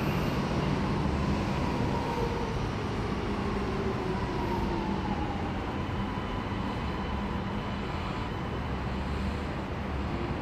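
Alstom Metropolis metro train pulling into the platform and slowing to a stop: a steady rumble with an electric whine that falls in pitch as it slows.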